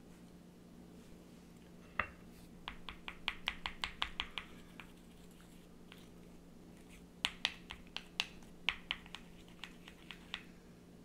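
A spoon clicking against a small ceramic bowl while it stirs ketchup, mayonnaise and condensed milk into a thick sauce. The taps come in two quick runs of several a second, with a pause between.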